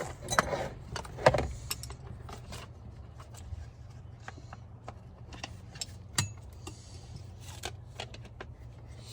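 Seatbelt being pulled out through the pillar trim: the metal latch plate and hardware clink and jangle, with rustling and scattered light clicks. These are busiest in the first two seconds, over a steady low hum.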